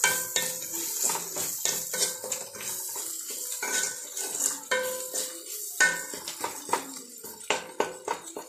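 Steel spoon stirring and scraping shallots, curry leaves and green chillies around an aluminium pan, with irregular clinks and scrapes several times a second, some leaving the pan ringing briefly. Underneath, the oil sizzles as the onions sauté with salt to soften.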